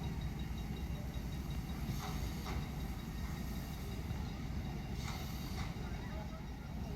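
Steam locomotive 65 018 standing ready to depart: a steady low rumble and hiss, with a few faint short puffs.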